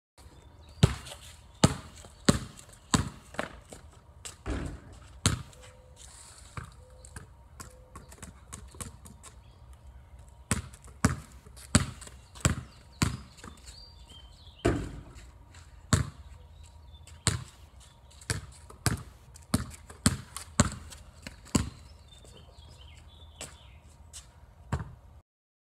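Basketball bouncing on a wet concrete driveway as it is dribbled: a run of sharp, even bounces, about one to one and a half a second, with a few short pauses.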